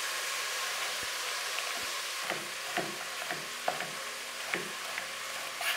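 Celery, carrots and onions sizzling steadily as they brown in hot clarified butter (Butterschmalz) in a pot. From about two seconds in, a chef's knife chops leek on a cutting board, a cut about every half second.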